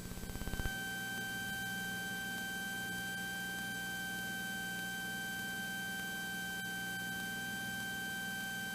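Cessna 182T's six-cylinder Lycoming IO-540 at full takeoff power through the takeoff roll and liftoff, heard as a steady low hum with a thin, steady high whine over it. A fast ticking swells in under the first second, then the sound holds even.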